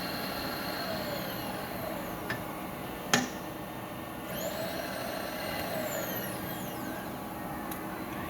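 Cleveland milling machine running steadily, its motor and gearing giving a constant hum with a high sweeping whine that rises and falls twice. A single sharp metallic knock about three seconds in, with lighter clicks before and after.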